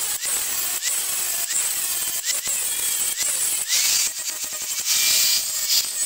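Angle grinder grinding a MIG weld bead flush on a steel tab: a steady high-pitched grinding hiss with brief dips as the disc is worked over the metal.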